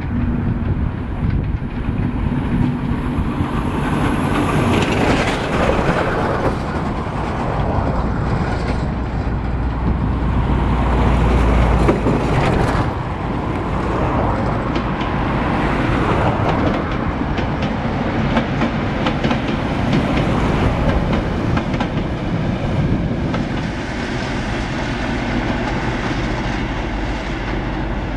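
Ex-DB class 624 diesel multiple unit passing, with a continuous diesel rumble and wheels clacking over the rail joints. It is loudest about twelve seconds in, as the train crosses the steel truss bridge.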